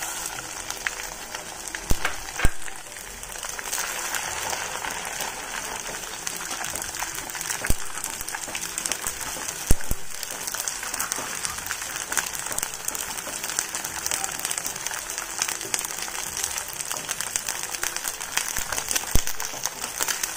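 Hot oil in a steel kadai sizzling and crackling densely as a batch of sago pearls deep-fries and puffs up. The sizzle swells a few seconds in. A handful of sharp knocks come from the wire skimmer against the pan.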